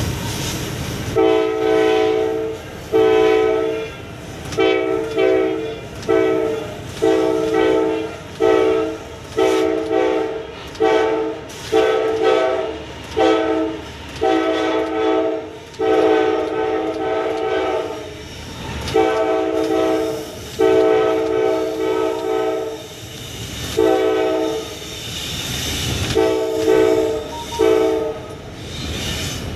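Diesel locomotive's air horn sounded again and again in about twenty short and longer blasts, a chord of a few close tones, with the train's running rumble underneath.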